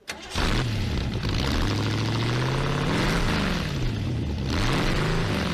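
Shelby Cobra's V8 engine running, cutting in suddenly and revved twice: its pitch rises and falls about three seconds in and again near the end.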